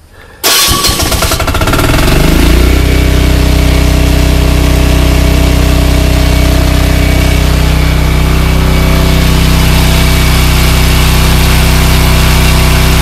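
ETQ single-cylinder diesel portable generator electric-started with the key: it catches about half a second in, runs rough for a second or so, then settles into a loud, steady run under a work-light load. Its crankcase has just been filled right to the top with oil, which the owner finds makes it run quieter.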